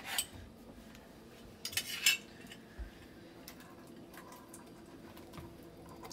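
Kitchen clatter of cans and utensils being handled while beans are drained at the sink: a couple of sharp clinks at the start and about two seconds in, then a few faint clicks.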